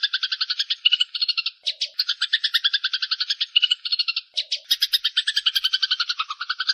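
Eurasian tree sparrows in an agitated fight, chattering in fast unbroken runs of chirps of about a dozen a second, with two brief pauses.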